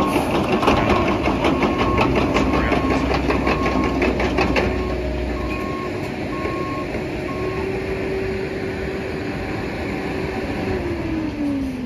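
Cat mini excavator running with its travel alarm beeping steadily, a little under two beeps a second, until about eight seconds in, with a run of rapid metallic clacks over the first five seconds. The engine then drops to a lower hum, and a tone falls in pitch near the end.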